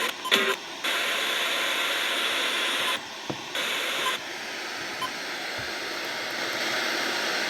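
Radio static: a steady hiss that drops out briefly about three seconds in, then returns thinner and lighter.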